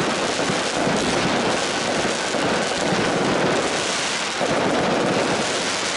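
Fireworks bursting overhead: a dense, continuous crackle of many rapid small pops from white crackling stars.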